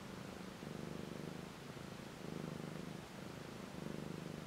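Mother cat purring steadily as her kittens nurse, the purr swelling and fading with each breath about every one and a half seconds.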